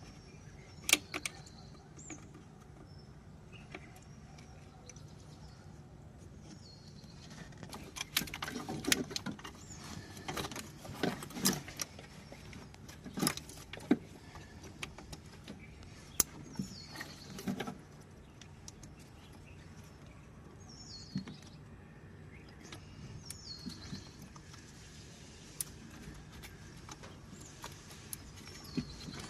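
Scattered metallic clinks and knocks of tools or parts being handled, heaviest in the middle, over a steady low hum. A few short, high, falling chirps are heard now and then.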